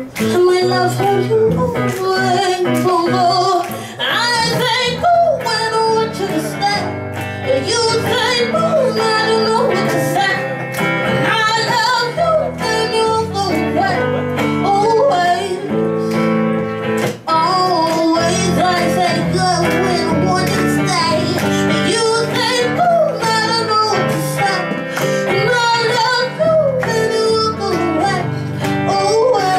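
Live band music: a female vocalist singing over electric guitar and plucked upright double bass.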